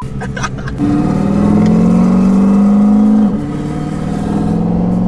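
Turbocharged Ford Mustang V8 accelerating hard, heard from inside the cabin: a loud, steady engine note that climbs slightly for about two and a half seconds, then drops as the throttle is lifted about three seconds in.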